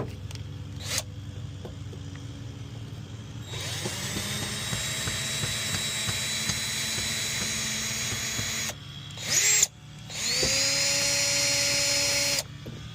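Cordless power drill/driver running in a long run of about five seconds, a short burst, then another run of about two seconds that spins up in pitch as it starts, backing out the screws that hold a pickup's third brake light.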